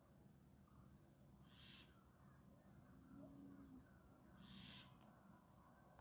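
Near silence broken by two faint, short, hissy bird calls about three seconds apart.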